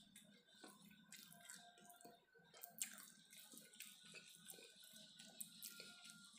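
Fingers mixing and scooping rice and side dishes on a ceramic plate: faint, scattered wet clicks and soft taps, with one sharper tap about three seconds in.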